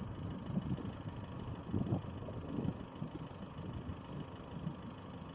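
Wind buffeting the phone's microphone: an uneven low rumble that swells and drops in gusts.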